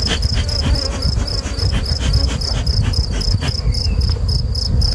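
An insect chirping steadily and rapidly, about five high chirps a second, over a steady low rumble, with scattered short clicks in the first few seconds.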